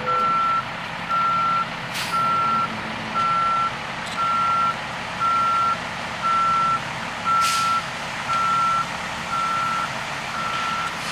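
Concrete mixer truck's reversing alarm beeping steadily, one single-pitched beep about every second, as the truck backs in with its load of concrete, over the truck's engine running. Two short sharp knocks sound in among the beeps.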